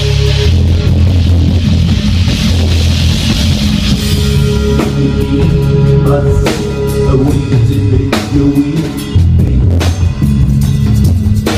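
Live heavy rock band: held low bass-guitar notes with drums. Cymbals wash for the first few seconds, then separate drum hits come in from about five seconds in.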